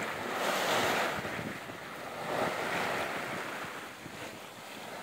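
Water rushing and splashing along the hull of a sailboat under sail through choppy waves. It swells twice, with wind buffeting the microphone.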